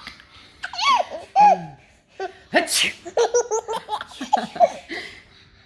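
A person sneezes sharply about two and a half seconds in, and a baby laughs right after in a quick run of short, rapid laughs; more baby voice sounds come about a second in.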